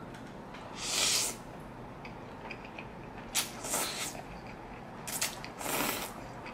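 Spaghetti noodles being slurped into the mouth from a forkful: a loud hissing slurp about a second in, then several shorter slurps in the second half.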